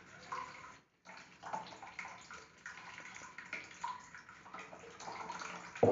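Water poured from a plastic jug into a plastic bottle, running out of holes in the bottle and splashing into a plastic basin of water. It breaks off briefly about a second in, then runs on steadily.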